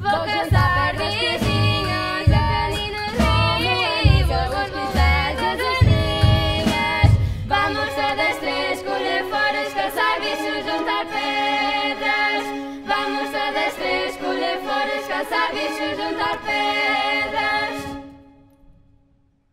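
Young voices singing with orchestra, over low pulsing notes that stop about halfway through, then held sustained notes; the music breaks off sharply a second or two before the end, leaving near silence.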